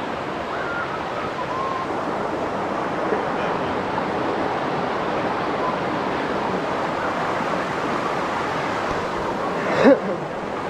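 Rushing water of a mountain river or stream, a steady rush. A brief sharp sound stands out near the end.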